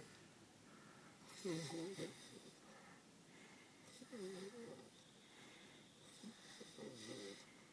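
A man snoring in his sleep: three snores, about two and a half seconds apart.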